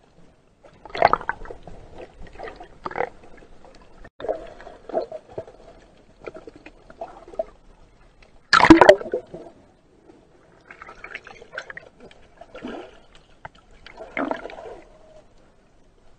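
Water recorded underwater: irregular bursts of bubbling and gurgling with sharp knocks every second or two, the loudest burst about eight and a half seconds in.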